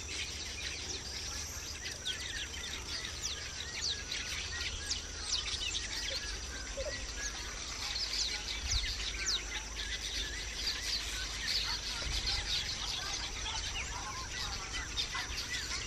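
Small birds chirping and twittering over and over, with a steady high hiss and a low rumble underneath.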